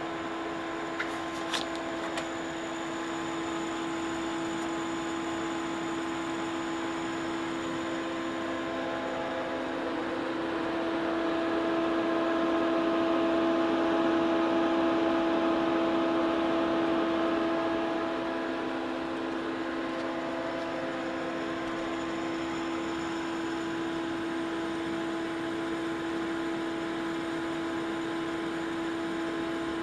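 ESAB Caddy AC/DC TIG welding machine running: a steady electrical hum with a few held tones, louder for several seconds in the middle, with a couple of sharp clicks near the start.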